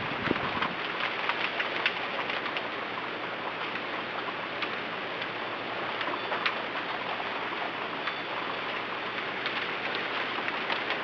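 Steady rain falling on surfaces in a windstorm, a dense even hiss with scattered sharp drop ticks; a low rumble of wind fades out in the first second.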